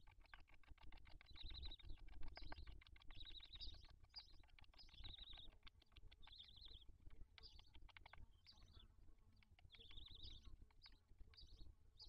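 Young barn owl chicks giving short, high squeaky calls about once a second while being fed, with rapid faint clicking and rustling in the nest beneath.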